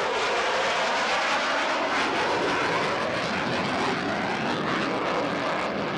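Fixed-wing aircraft engine noise, loud and steady, from an airplane flying a display, easing off slightly near the end.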